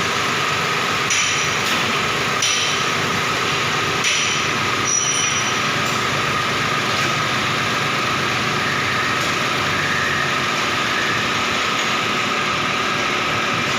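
Hyundai Xcent petrol engine running steadily at idle after its spark plugs were replaced to cure a misfire, with a few light ticks in the first few seconds.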